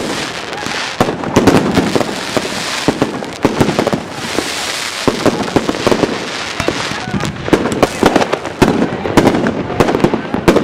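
Many fireworks going off at once: a continuous crackle and hiss of rockets and firecrackers, broken by dense, overlapping sharp bangs.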